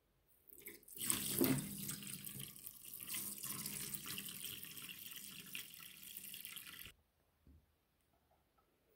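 Water gushing in a steady stream from a snipped water-filled balloon and splashing into a shallow plastic tray of liquid slime, stopping suddenly after about six seconds.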